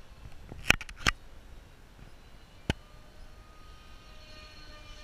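Three sharp clicks in the first three seconds, then the faint whine of a foam RC F-22 Raptor model's motor, growing louder as the jet comes round.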